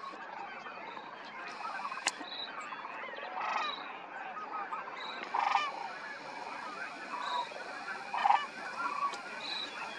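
A flock of sandhill cranes calling. A steady background chorus of many birds runs throughout, and several louder calls from nearer birds stand out over it, the loudest about eight seconds in.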